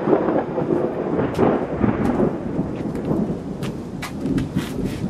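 Thunder rumbling on as it dies away after a close lightning strike, over steady rain. Sharp ticks of rain striking nearby grow more frequent in the second half.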